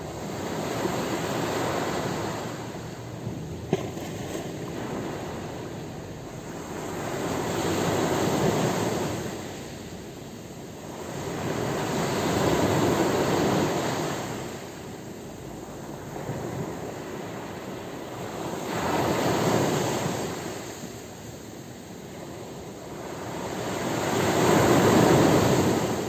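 Sea waves breaking and washing up a pebble beach, the surf swelling and fading five times, about every five to six seconds. A brief sharp click a few seconds in.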